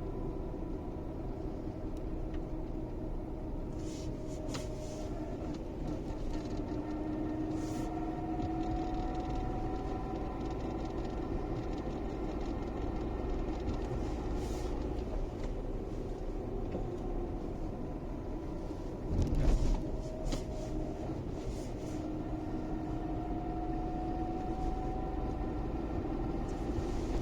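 Car engine running with steady road rumble, its pitch rising slowly twice as it accelerates. There is a short thump about nineteen seconds in.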